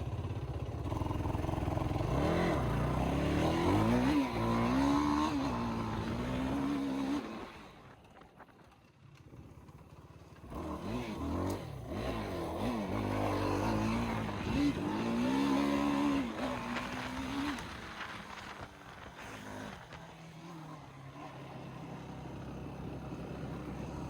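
ATV (quad) engine riding along, its pitch rising and falling as the throttle is opened and eased off. The engine drops away for a couple of seconds about eight seconds in, picks up again, and runs lower near the end.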